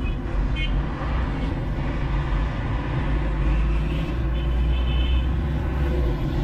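Steady low rumble of a truck's engine and tyres, heard from its open cargo bed while driving.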